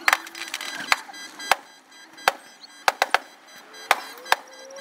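Aerial firework shells bursting: a string of sharp bangs, about eight in under five seconds, some coming in quick pairs.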